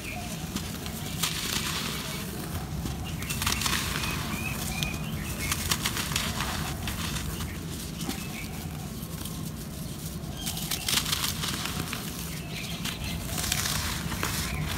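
Dry, pressed red-dirt blocks crushed and crumbled by hand: a gritty crackle of many fine cracks, with loose powdery soil pouring and sifting down between the fingers. It comes in several waves of crumbling as each handful breaks up.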